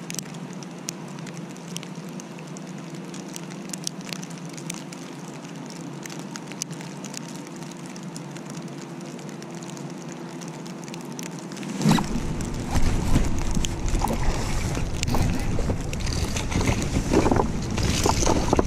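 Steady low hum with a few scattered light ticks, then about 12 seconds in a sudden, much louder rumble of wind and handling noise on a body-worn camera microphone as the angler moves about on the rocks.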